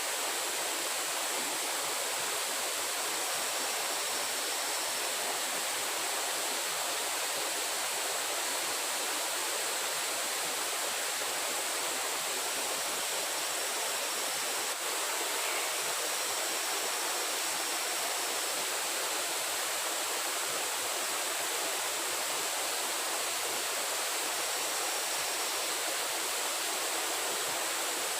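Steady rushing hiss of water, unchanging throughout, with a few faint short high-pitched tones now and then.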